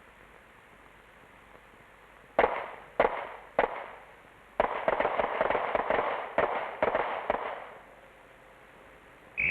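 Pistol fire on a combat range. Three single shots about half a second apart are followed about a second later by a quick, overlapping string of shots lasting about three seconds. A brief high-pitched blip comes near the end.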